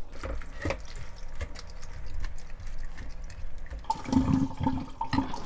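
Water splashing and draining as a bowl of rinsed, salted eggplant slices is tipped out into a stainless-steel colander in a sink.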